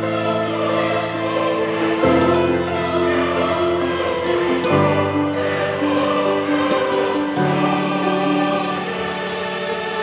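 Background music of slow sustained chords, choir-like voices singing, with the chord changing every two to three seconds.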